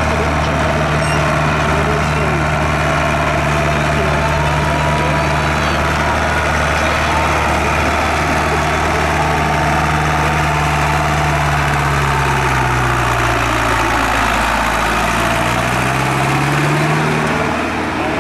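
Tractor engine running steadily, its pitch dipping a little past the middle and rising again near the end.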